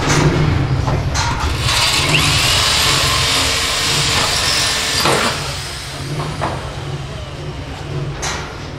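Handheld electric drill running and boring into the metal top ring of a stainless steel tandoor, then stopping about five seconds in.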